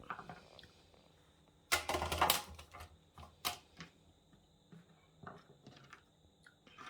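Kitchen knife chopping on a cutting board: a quick run of knocks about two seconds in, then scattered single taps.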